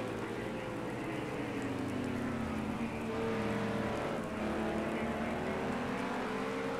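Vehicle engines running at a steady level, their pitch drifting slowly up and down, over a continuous hiss.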